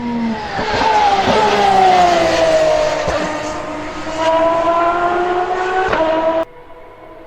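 Aston Martin Valkyrie's naturally aspirated V12 at high revs, its pitch falling over a couple of seconds, then jumping up and climbing again. The engine sound cuts off suddenly near the end, leaving a quieter sound.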